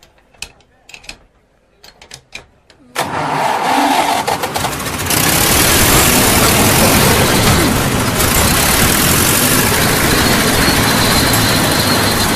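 A few light clicks and knocks of spanner work, then about three seconds in the road roller's engine starts suddenly and runs loudly and steadily with a harsh, hissing roar, right after its spark plug has been seen to.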